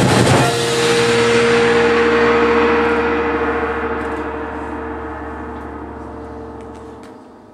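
Percussion ensemble's closing chord, struck hard at the start and left to ring, several tones fading slowly away until they die out about seven seconds in.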